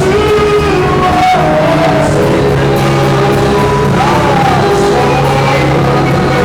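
Live gospel worship music: sung voices with held, wavering notes over sustained instrumental backing, loud and unbroken.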